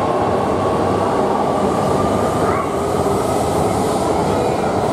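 Shinkansen train running along the platform: a loud, steady rush and rumble of wheels on rail, with a thin steady tone above it and a short rising tone about halfway through.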